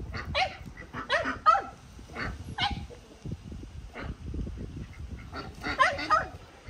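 Farmyard poultry calling: short, harsh calls repeated in clusters, the loudest bunch about a second in and another near the end.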